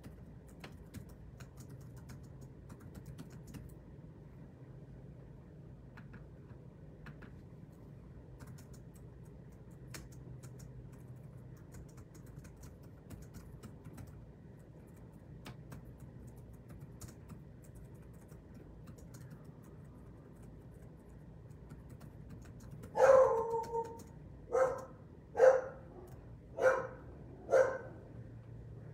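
A dog barks five times in a row, about a second apart, near the end; the first bark is the longest. Before that there is only a low steady room hum and scattered faint clicks like typing on a computer keyboard.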